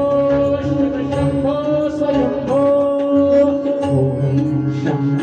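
Live Indian devotional music: a singer holding long notes that slide up into each new pitch, over tabla accompaniment.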